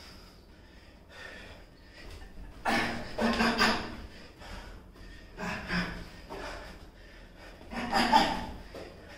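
A boxer's sharp, forceful breaths and snorts as he throws punches while shadow boxing, coming in a few short bursts one to two seconds apart.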